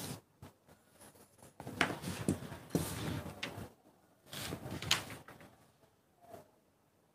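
Paper pattern and drafting tools being handled on a table: rustling with a few light knocks, in several short bursts with quiet gaps between them.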